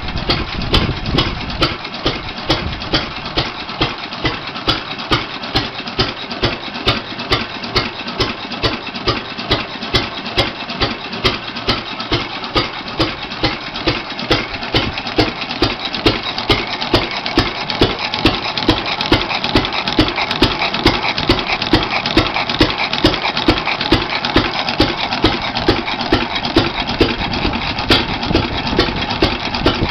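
Goold, Shapley & Muir antique hit-and-miss stationary gas engine running on its own, with steady, evenly spaced beats at about three a second and sharp mechanical clicks.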